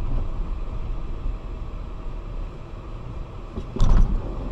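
Steady low rumble of a car driving, heard from inside the cabin, with a loud brief noise about four seconds in.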